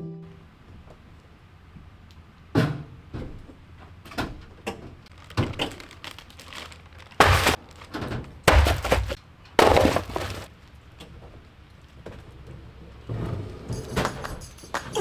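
Irregular knocks and clattering of hard objects being handled, starting about two and a half seconds in, loudest between about seven and ten seconds, then softer knocks near the end.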